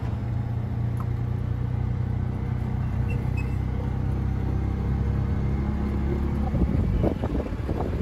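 A vehicle engine running steadily with a low hum. About six and a half seconds in, it gives way to uneven buffeting noise.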